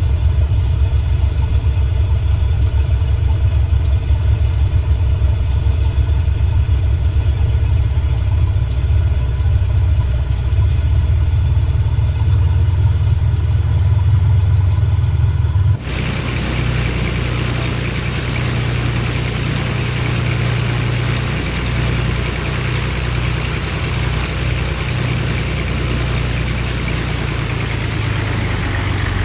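An engine running steadily with a low hum. About sixteen seconds in the sound changes abruptly, becoming hissier with a lighter hum underneath.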